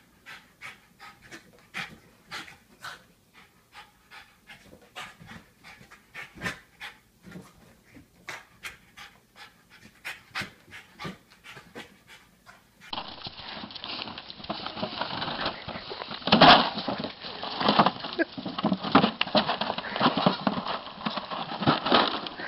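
Small dog panting quickly, about two short breaths a second, as it jumps for a balloon. About 13 seconds in this cuts to a louder, dense rustling and crackling as goats feed and shuffle on dry leaves.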